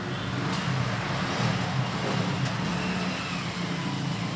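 Steady engine and traffic rumble with a low hum, holding level throughout.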